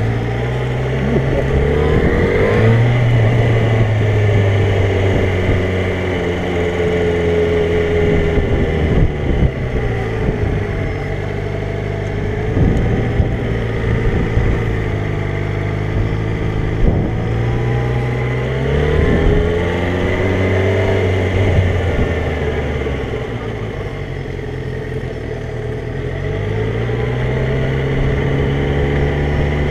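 Yamaha motorcycle engine running at low speed, its revs climbing and dropping several times as the bike accelerates and slows.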